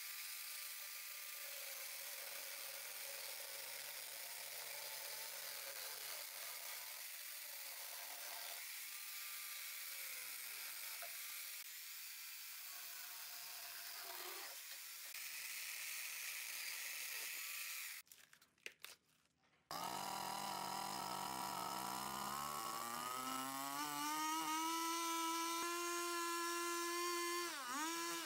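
Small corded electric chainsaw cutting through a dry tree root stump, a steady buzzing chatter of chain in wood. After a short break it runs again with a rising motor whine that dips briefly as the chain bites into a log near the end.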